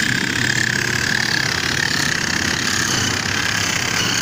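Electric rotary car polisher running with a wool buffing pad on a car's paint: a steady high motor whine that sags slightly in pitch in the first second and a half, over a fast rattling hum. It is a noise the workers put down to worn gears in the polisher.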